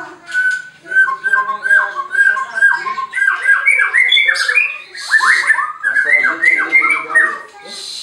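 White-rumped shama (murai batu) singing loudly: a rapid string of short whistled notes that slide in pitch, several a second, with scratchy high notes mixed in. It grows faster and denser in the middle and eases off near the end.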